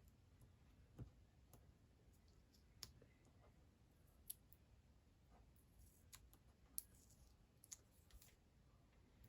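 Near silence broken by faint, irregular small clicks and light taps from handling stickers and planner paper on a desk.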